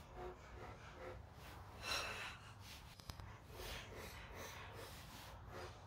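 A man breathing heavily and faintly from exertion, with one stronger breath about two seconds in.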